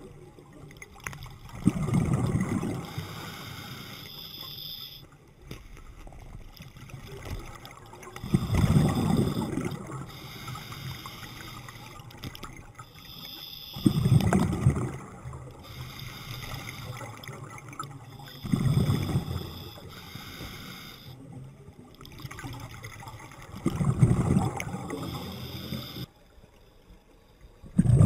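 Scuba diver breathing through a regulator underwater: a burst of exhaled bubbles about every five seconds, with a quieter hiss from each inhalation between them.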